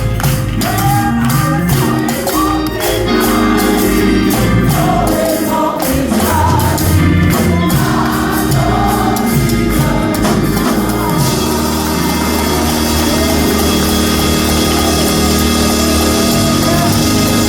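Gospel music: a choir singing over instrumental backing with a steady percussive beat. About eleven seconds in, the beat drops out and the music carries on more evenly.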